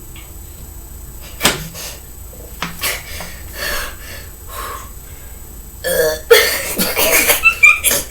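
Person burping after chugging carbonated soda: a sudden burp about a second and a half in, a few shorter ones after it, then louder, longer burping near the end.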